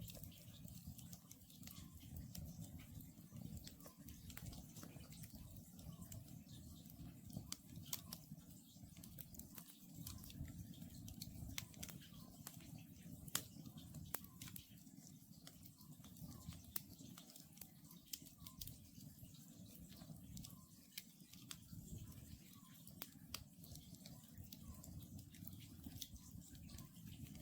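Wood campfire crackling, with frequent small sharp pops over a low steady rumble of the burning logs. Behind it, an Oriental scops owl calls faintly, one short note repeated over and over every second or two.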